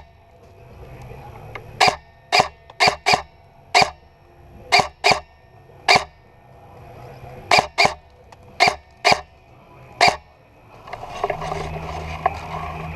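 An airsoft gun fired in single shots, about thirteen sharp cracks at uneven intervals. About eleven seconds in, a steady low hum with noise comes in.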